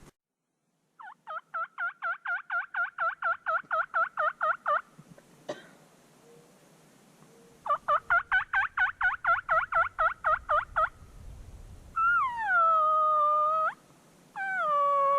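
Turkey calling: two runs of rapid, evenly spaced yelping notes, about five a second, then two long drawn-out notes near the end that drop in pitch and hold.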